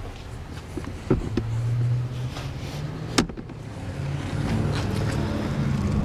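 Folding jump seat of a 1950 Chrysler Crown Imperial limousine being pulled out and set up. Its hinged metal brackets give a couple of light clicks about a second in and a sharp click about three seconds in, over a low steady rumble.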